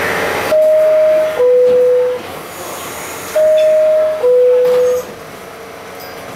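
R68 subway car's door-closing chime: a descending two-note bing-bong, sounded twice about three seconds apart, over the car's steady background noise. It warns that the doors are about to close.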